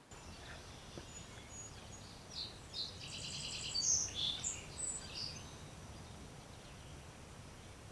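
Birds singing, a cluster of high chirps and a quick trill for a few seconds in the middle, over a steady outdoor background hiss.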